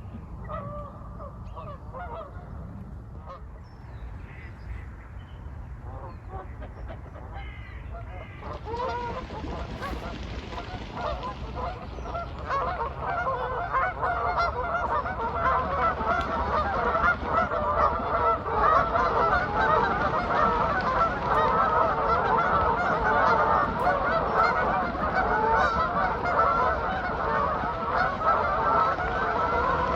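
A large flock of geese honking on a lake: scattered calls at first, swelling from about nine seconds in into a loud, dense chorus of honking.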